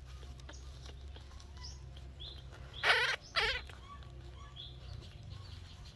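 Newborn baby monkey crying out twice in short, high squeals about three seconds in, after a few faint high chirps, over a steady low hum.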